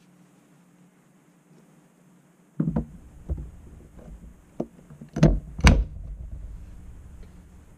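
Hard plastic knocks and clicks as a Ryobi P190 18V lithium battery pack is set onto a Ryobi P118B charger and slid into place. The two loudest knocks come close together a little past five seconds in.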